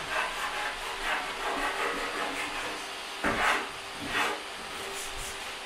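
Hand-sanding plywood cabinet edges with a sanding block: repeated back-and-forth rubbing strokes, two louder ones about three and four seconds in.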